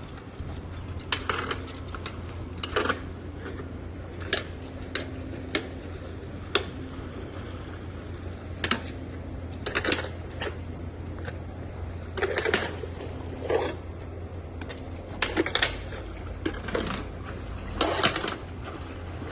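Irregular knocks and clatters over a steady low hum.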